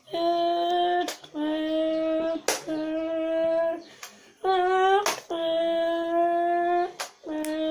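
A child imitating a Ferrari engine with his voice: about six held, steady buzzing notes of a second or so each, one near the middle gliding upward, broken up by sharp clicks between them.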